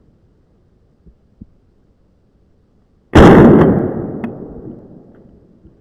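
A single shotgun shot about three seconds in, very loud, its report fading out over the next couple of seconds as it echoes through the woods.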